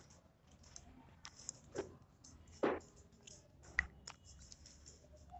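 Faint, scattered small clicks and taps at irregular intervals, with a few louder knocks about two, three and four seconds in.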